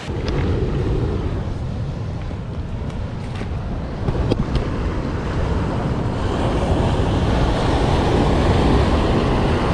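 Rough ocean surf churning and breaking against the rocks at the foot of a cliff, with wind rumbling on the microphone. The wash grows louder and fuller about six seconds in as a wave crashes on the rocks.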